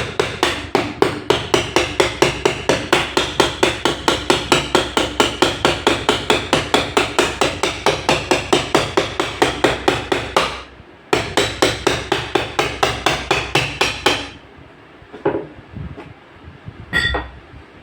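Hammer blows in a fast, even rhythm, about five a second. They break off briefly about ten seconds in, then resume until about fourteen seconds in. A single knock comes near the end.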